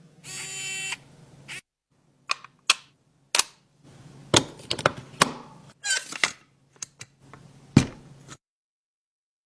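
A brief buzzing hum, then a string of sharp, irregular clicks and snaps from a small precision screwdriver kit being handled, its bits and case parts clicking together.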